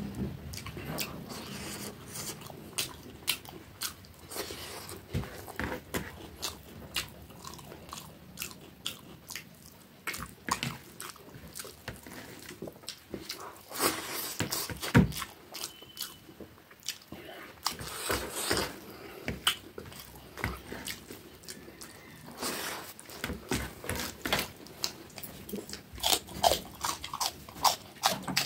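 Close-up chewing and wet mouth sounds of a person eating rice and stir-fried vegetables by hand, with many quick, irregular clicks and crunches.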